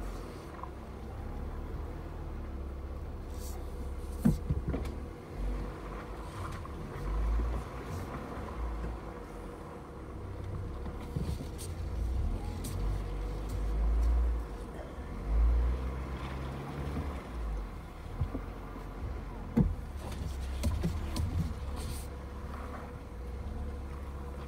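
Off-road vehicle crawling down a rough dirt trail, heard from inside the cab: a low engine and drivetrain rumble that swells and eases, with a few sharp knocks from the uneven ground.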